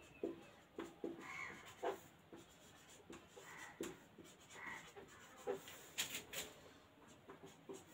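Marker writing on a whiteboard: a run of short, faint strokes, one letter after another, with a few sharper taps about six seconds in.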